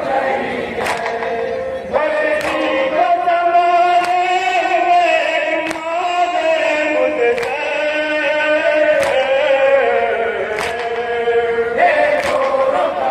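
Men singing a Shia nauha (mourning lament) in long drawn-out lines. The crowd's matam, hands striking chests together, lands as a sharp slap about every second and a half and keeps the beat.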